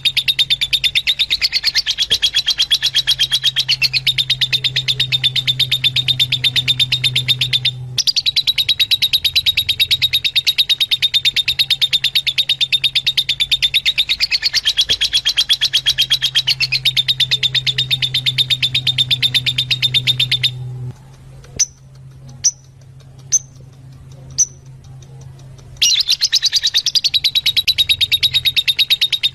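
Fischer's lovebirds chattering in a fast, unbroken stream of high chirps, the same pattern coming round again and again. Near the two-thirds mark the chatter drops away for about five seconds, leaving only four single sharp calls, then resumes.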